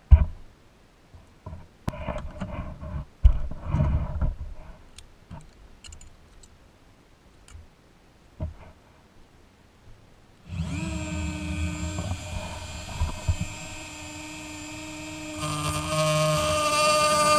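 Clicks and light knocks of pliers and toy parts being handled; then, about ten seconds in, a small rotary tool with a cut-off disc starts up with a steady high whine, growing louder and rougher some five seconds later as the disc meets the toy's metal chassis.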